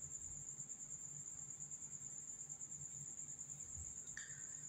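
Cricket trilling: a faint, steady, high-pitched pulsing tone, with a brief soft rustle about four seconds in.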